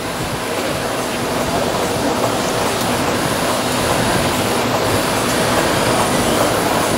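Steady rushing mechanical noise that grows gradually louder, with a faint high whine running through it.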